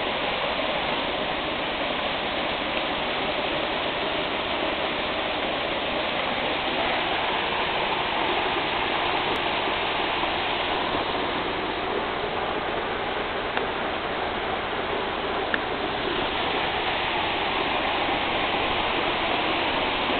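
Waterfall dropping free off a cliff onto rock: a steady, even rush of falling water.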